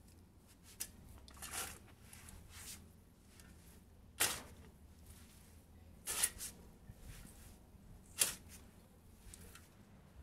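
Steel garden spade being driven into and turning over dark bed soil: a gritty scrape with each stroke, the strongest about two seconds apart.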